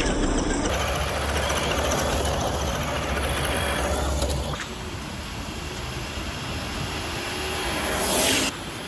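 Vehicle engine running with a low steady rumble that drops away about four and a half seconds in, leaving a quieter running noise. Near the end a brief whoosh cuts off suddenly.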